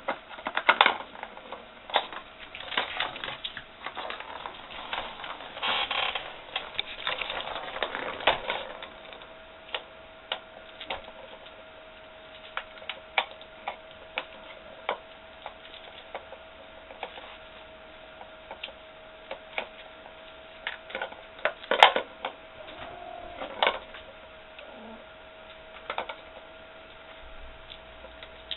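Kittens batting at a round plastic track toy: the plastic clicks, knocks and rattles as a ball is knocked around its track. The clicks come thick and fast for the first several seconds, then turn sporadic, with one sharp knock about three-quarters of the way through.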